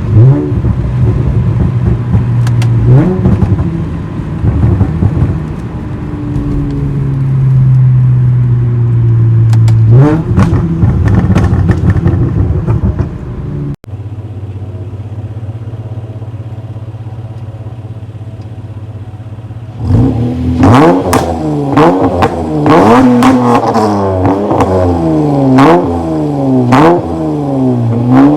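Honda Accord V6 with catless downpipes (RV6 precat deletes) idling with a steady hum and revved briefly twice. After a break it idles steadily, then from about 20 seconds in it is revved up and down over and over in quick succession.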